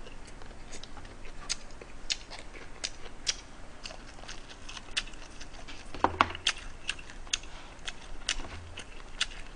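Close-up eating sounds: scattered sharp clicks of chewing and of wooden chopsticks against a paper rice bowl. About six seconds in, the bowl is set down on the table with a soft knock.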